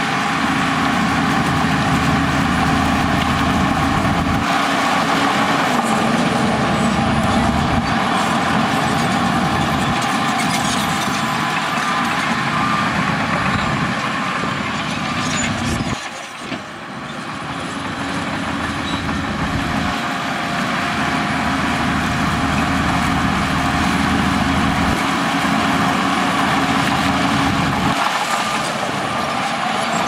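Diesel engine of a Shantui crawler bulldozer running hard under load as it pushes rock and soil, with a steady whine above the engine note. The sound dips briefly about halfway through, then picks up again.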